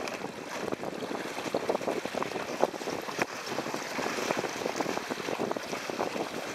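Water rushing and splashing along the hull of an MX-Ray sailing dinghy heeled over and moving fast, with frequent short splashes of spray. Wind buffets the microphone throughout.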